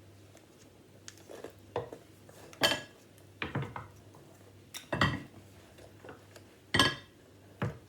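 A plate and kitchen utensils knocking and clinking, about six separate knocks with a short ring after each, the loudest three spread through the middle and near the end.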